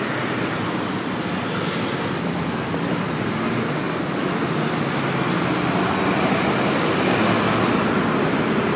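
Steady road traffic noise from cars, a box truck and buses on a busy multi-lane road: engine hum and tyre noise, growing a little louder over the last few seconds.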